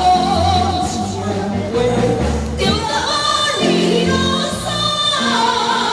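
Singing into microphones over backing music with a steady bass line, from a Taiwanese opera (gezaixi) troupe's song number.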